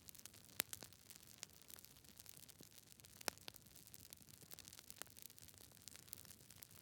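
Fire crackling faintly: scattered small crackles over a soft hiss, with two louder sharp pops, one about half a second in and one a little after three seconds.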